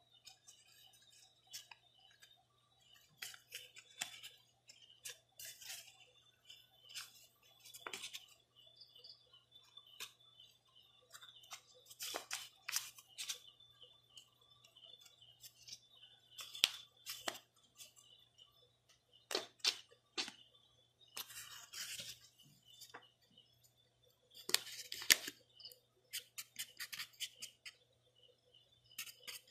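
A folded paper mask being handled, with irregular clusters of short paper rustles and crinkles.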